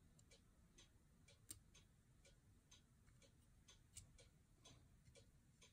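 Faint, irregular light clicks and ticks of small parts being handled: resin-printed wheels and pop-rivet-shaft axles tapping against the die-cast toy tanker's body as they are fitted. Two sharper clicks come about a second and a half in and again near four seconds.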